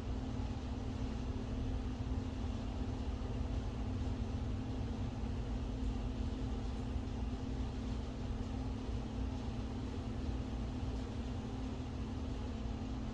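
Steady background hum and hiss of a running machine in the room, with one constant low tone and no change throughout.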